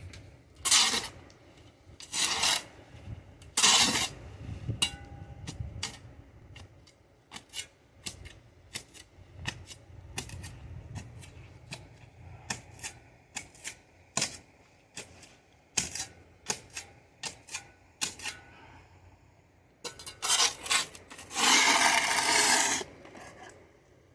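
Metal shovel blade scraping over a concrete slab, clearing packed dirt: three short scrapes in the first few seconds, then many short clicks and ticks, and a longer scrape near the end.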